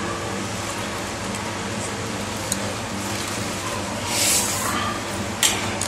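Water from a polythene fish bag being tipped into an aquarium, over the steady hum of the tank's internal filter, with a short louder burst about four seconds in.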